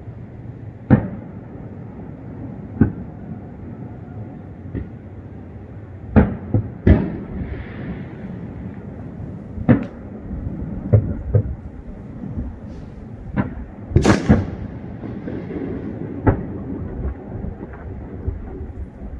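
Fireworks going off at uneven intervals, about a dozen sharp bangs of varying strength over a steady low rumble. The loudest comes about fourteen seconds in, with a trailing echo.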